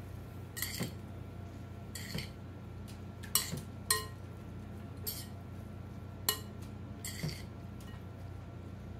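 A spoon clinking against the side of a mixing bowl about seven times at uneven intervals while stirring a shredded carrot salad, over a faint steady hum.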